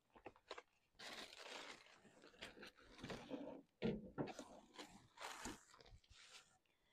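Faint crinkling and rustling of packaging being handled, with a few light clicks at the start.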